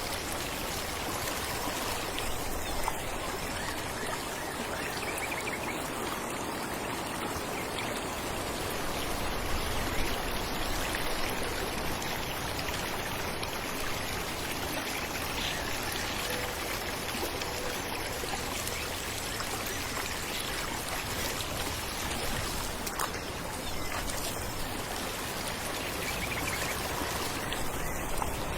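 Falling water running steadily, an even splashing rush with no break.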